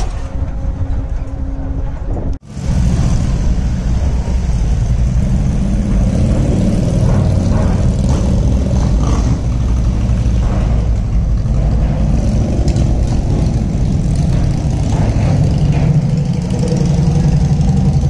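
Engines idling on a car ferry's vehicle deck: a steady low rumble that drops out briefly about two seconds in and comes back louder.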